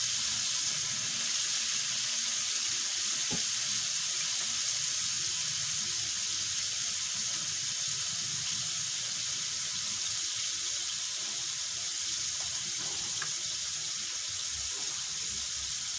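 Soy-sauce adobo liquid simmering in a steel wok over a gas flame, a steady hiss.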